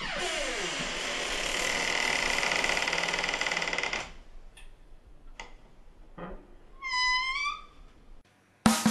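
Atmospheric intro sound effects: a noisy whoosh about four seconds long with a falling sweep at its start, a few faint clicks, then a short wavering high tone. A drum kit comes in right at the end.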